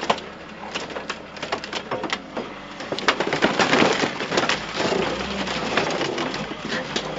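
Sheet metal and engine mounts snapping, cracking and creaking under the hydraulic engine-puller forks of a wheel loader as they pull at a scrap car's engine. The sharp snaps are thickest in the first few seconds, then give way to a denser grinding over a low engine hum from the loader.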